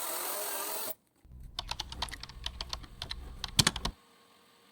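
A quick, irregular run of sharp clicks and taps over a low hum, with one louder pair of clicks near the end, after a short drop to silence.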